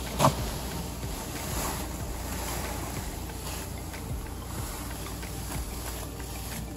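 A short thump just after the start, then the steady rushing hiss of potting soil with perlite pouring from a plastic bag into a wooden planter.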